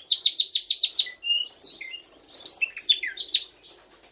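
Male Norwich canaries singing, a sign that the cocks are fit and ready to breed. The song opens with a fast trill of repeated high notes, then breaks into varied chirps and warbling phrases that die away near the end.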